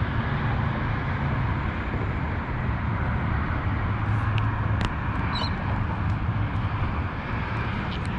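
Steady low outdoor rumble and noise, with a few light clicks about halfway through and faint high chirps later.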